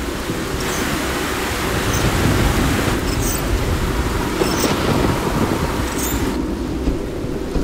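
Storm sound effects: a steady hiss of heavy rain over low rumbling thunder. About six seconds in the rain's hiss drops away, leaving the low rumble.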